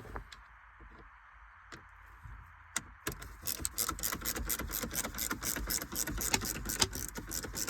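Ratchet driver with a T25 Torx bit backing out screws from a car's centre-console trim: a few single clicks, then from about three seconds in a fast, even run of ratchet clicks, several a second.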